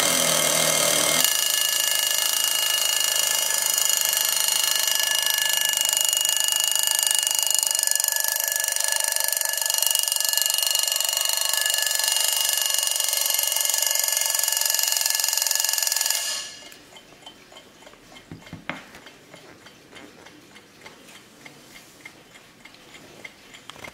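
Junghans braille alarm clock's alarm ringing loudly and steadily, then cutting off abruptly about sixteen seconds in. The clock then ticks quietly.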